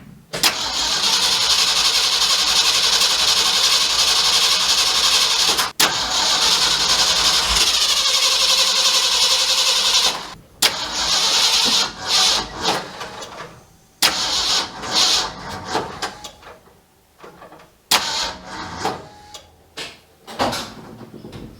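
The 1967 Mercury F250's Ford V8 is cranked on the starter in two long spells, together about ten seconds with a brief break near six seconds, then in a series of short bursts. The spark plug wires have just been moved one position on the distributor cap to reset the ignition timing.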